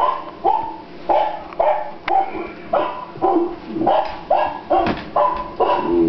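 Small dog barking over and over in short, evenly spaced barks, about two a second.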